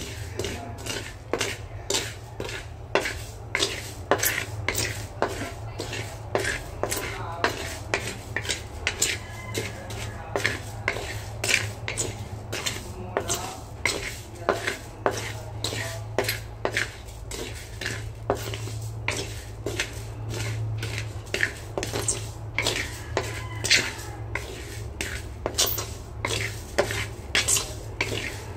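Wooden spatula stirring and scraping rice grains around a dark pan as they dry-roast dark for rice coffee, a scraping stroke about twice a second. A steady low hum runs underneath.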